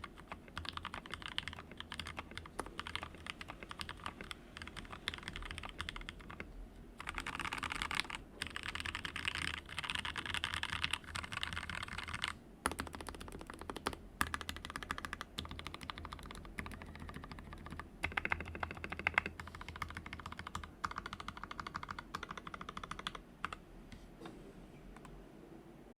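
Fast, continuous typing on an XD60 Rev 3 60% mechanical keyboard with Gateron Yellow linear switches and blank keycaps. The keystrokes run in quick runs with a few brief pauses and louder stretches, and stop shortly before the end.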